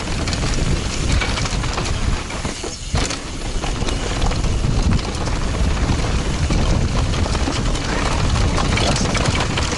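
Ride noise from a helmet camera on a downhill mountain bike descending a steep, loose dirt trail: tyres crunching and skidding over dirt and rocks, the bike rattling over bumps with scattered sharp knocks, and wind buffeting the microphone as a heavy low rumble.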